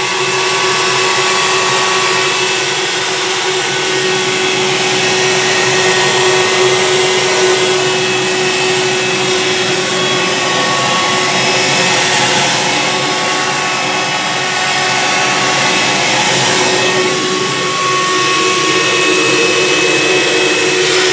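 Handheld vacuum cleaner running continuously: a steady motor whine over rushing air. Its tone shifts slightly twice as it runs.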